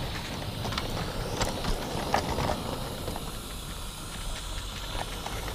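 A 16 mm scale live-steam garden-railway locomotive running close by with a steady hiss of steam, over a low rumble of wagon wheels on the track and scattered sharp clicks as the wheels pass over rail joints and points.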